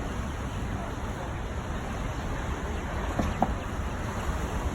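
Street traffic noise: a steady low rumble from passing and idling cars, with a brief short sound a little over three seconds in.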